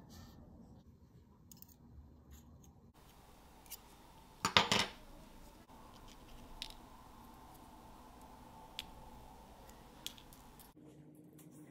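Light metallic clicks and taps from a steel watch mainspring and a brass mainspring winder being handled. About four and a half seconds in there is a short, quick run of louder clicks, the loudest sound, with single faint clicks scattered before and after.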